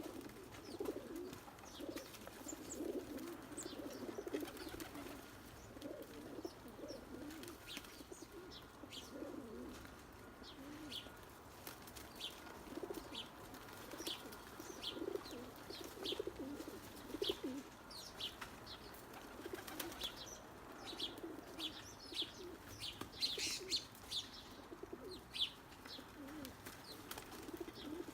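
A flock of doves cooing over and over while squabbling over food, with some wing flapping. Many short high chirps from smaller birds come in, most thickly in the second half.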